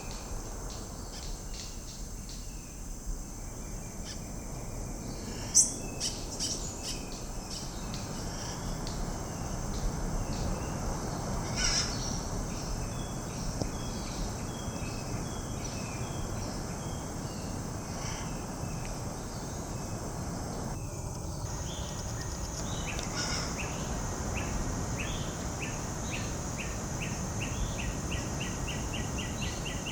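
Tropical birds calling with scattered short chirps over a steady high-pitched insect drone. A brief sharp click comes about five seconds in, and near the end a bird gives a quick run of repeated chirps.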